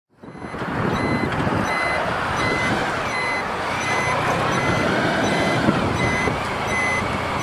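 Honda Pan European ST1100's turn-signal warning beeper sounding in an even beat, about three short beeps every two seconds, over the bike's V4 engine and wind noise while riding through a roundabout. The sound fades in at the start.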